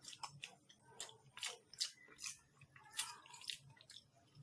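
Faint mouth sounds of a person suffering from chili heat: a quick string of short, sharp hisses and smacks, several a second, as air is sucked in through the lips and teeth.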